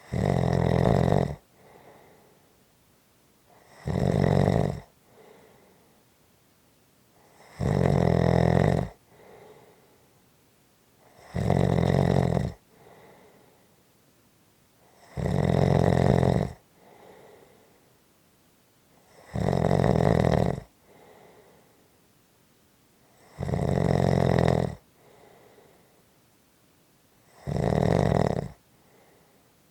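Steady, regular snoring: eight loud snores, each lasting about a second, coming about every four seconds, each followed by a much fainter breath.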